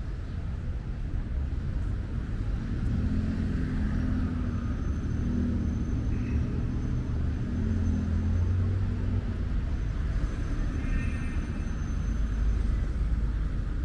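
City street traffic: car engines running and passing, with a steady low rumble.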